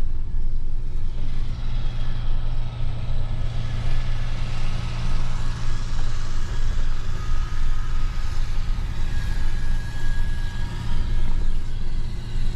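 A vehicle's engine running steadily at an even speed, a constant low drone with rumble underneath.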